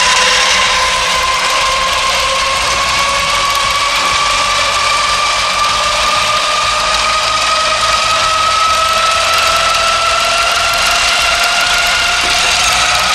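Motorised treadmill running with battery-powered Duplo toy trains on its belt: a steady mechanical whine that slowly rises in pitch.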